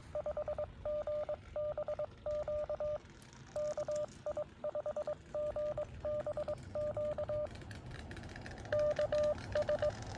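Morse code (CW) from a Xiegu X6100 transceiver's speaker: a single steady tone keyed on and off in dots and dashes, over faint receiver hiss. The keying pauses briefly about three-quarters of the way through, then resumes.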